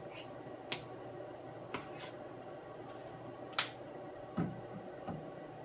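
Hands handling an ultrasound machine and its probe: four sharp clicks spaced irregularly, then two duller knocks near the end, over a faint steady hum.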